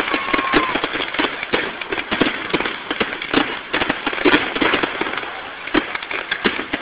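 Aerial fireworks display: a rapid, overlapping barrage of shell bursts, bangs and crackling.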